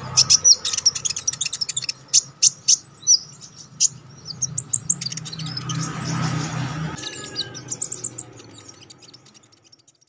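Crimson sunbird (konin) singing: a rapid series of sharp, very high chirps and short trilled notes that comes in bursts and fades out near the end.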